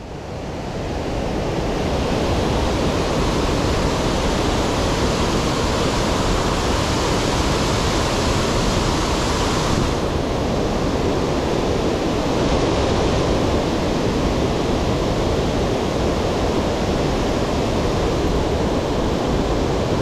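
A waterfall close by, with water pouring over a rock ledge in a loud, steady rush. It swells up over the first couple of seconds, and about halfway through the highest part of the hiss drops away.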